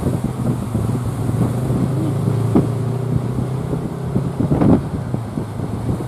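A motor running with a steady low hum, under wind buffeting the microphone and the rush of breaking surf, with a couple of short knocks or gusts about halfway through and near the end.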